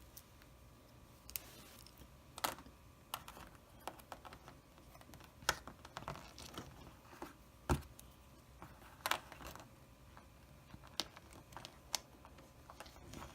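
Small plastic toy pieces clicking and tapping as they are handled and fitted together: irregular sharp clicks, a dozen or so, with quiet stretches between.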